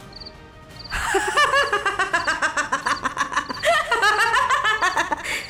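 A young woman's high, giggling laugh over background music, starting about a second in and running for about four seconds.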